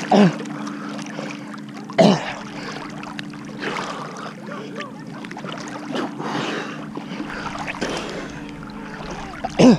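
Lake water sloshing and lapping against a camera held at the surface. A steady low hum runs underneath, and a few short, loud sounds fall quickly in pitch, one near the start, one about two seconds in and one near the end.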